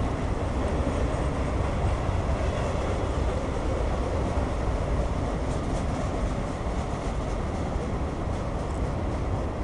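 Norfolk Southern mixed freight train's cars rolling past: a steady rumble of steel wheels on the rails, with faint rapid clicking in the second half.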